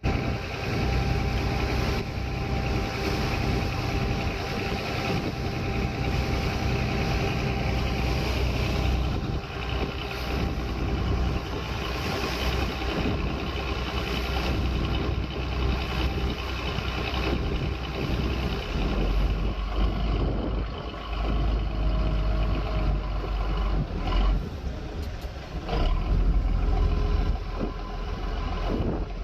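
An engine running steadily, with a low rumble under a constant rushing noise.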